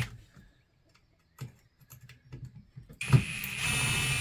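A few small clicks and knocks of parts being handled, then about three seconds in a power drill starts and runs steadily with an even whine, backing screws out of a ceiling fan's housing.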